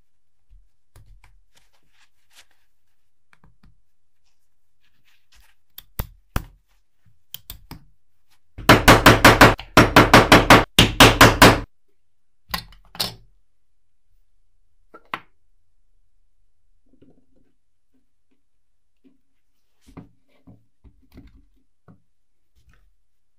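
Metal parts of a desk flip calendar clicking and clacking as they are handled and fitted together on a wooden bench. About a third of the way in comes a rapid run of loud clacks, four or five a second, lasting about three seconds, with scattered single clicks before and after.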